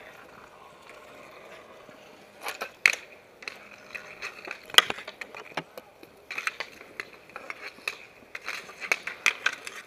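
Roller hockey on asphalt: sticks clacking against the puck and the pavement over inline skate wheels rolling. After a quieter first two seconds or so, a run of sharp knocks follows, the loudest about three and five seconds in.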